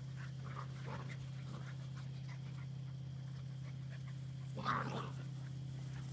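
Eight-week-old Australian Labradoodle puppies panting faintly as they run about, with one short, louder puppy sound about four and a half seconds in.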